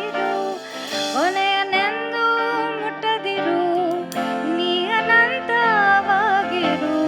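A woman singing with band accompaniment in a jazz-style rendition of an Indian song, with a rising slide into a note about a second in and a wavering, vibrato-laden held note later on.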